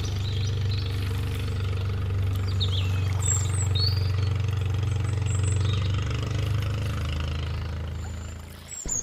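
An engine idling with a steady, even low hum, with small birds chirping over it a few times; the hum cuts off suddenly near the end.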